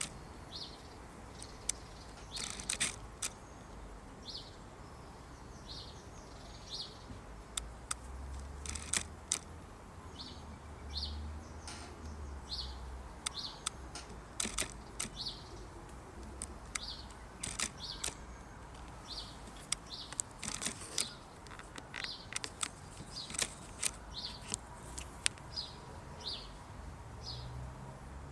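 A small bird chirping over and over, short high notes about once a second, over a low rumble of wind on the microphone, with scattered sharp ticks.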